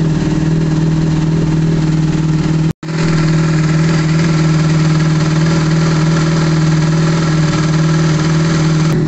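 Yamaha Fazer 600 inline-four engine idling steadily at operating temperature, with a momentary dropout almost three seconds in.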